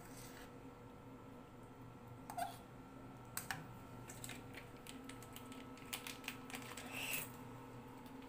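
Scattered light clicks and taps of a spoon against a steel pot while noodles are stirred in soup, bunching into a quick flurry and a short rustle near the end, over a faint steady hum.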